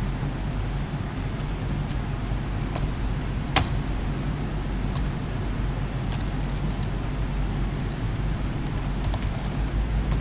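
Computer keyboard typing: scattered keystrokes, one noticeably louder click about a third of the way in and quicker runs of keys later, over a steady low hum.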